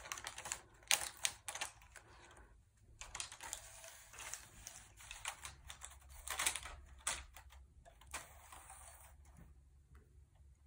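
A plastic strip being pressed back into a knitting machine's needle bed under its metal needles, with irregular clicking and clattering, busiest about a second in and again around the middle, then thinning out.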